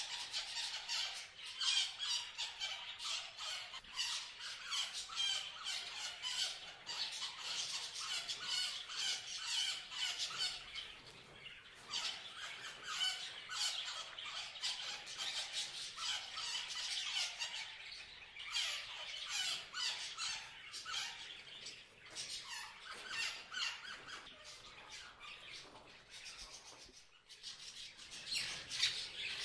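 Parrots chirping and squawking in a steady stream of rapid, overlapping high calls, thinning briefly a little before the end.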